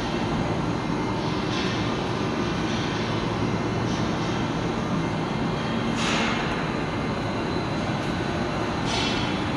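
Knee milling machine running steadily under power, a continuous low mechanical hum and rumble. A few brief hissing swells rise over it.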